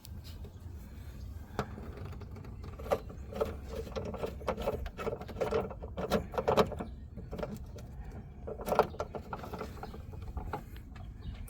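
Coolant reservoir's mounting screw being threaded in by hand, with scattered clicks, taps and plastic rattles from the tank and fittings being handled. The busiest run of clicks is in the middle, with another near the end.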